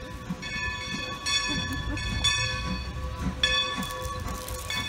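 Steam locomotive's bell ringing, struck over and over, roughly once or twice a second, with each stroke fading away, over a low rumble from the approaching engine.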